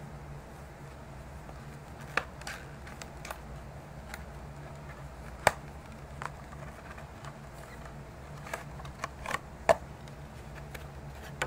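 Hands opening a small cardboard playing-card box and handling the deck inside, making scattered sharp clicks and taps, a few at a time with the loudest about five and a half and nine and a half seconds in, over a steady low hum.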